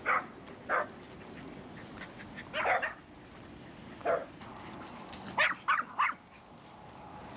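Dog barking: about seven short barks at irregular intervals, the last three in quick succession.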